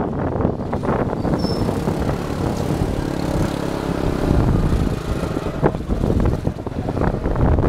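Street traffic and vehicle engine noise heard from a vehicle moving through a city street: a steady, dense rumble.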